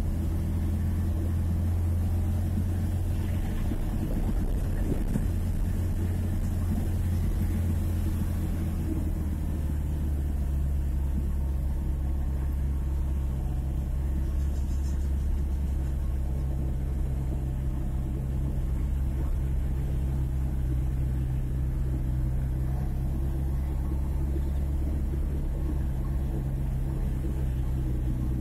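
Vehicle engine running steadily as it drives, with a low, even drone and road noise. The engine note changes about ten seconds in.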